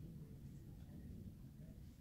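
Near silence: a faint, steady low rumble from a rainstorm.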